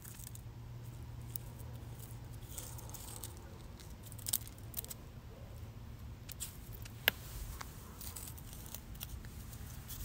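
Quiet background with a low steady hum and scattered small clicks and rustles, the sharpest click about seven seconds in.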